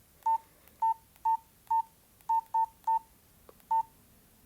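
Nokia 113 mobile phone keypad tones: eight short beeps, all at the same pitch, at an uneven pace as its keys are pressed to move through the menus.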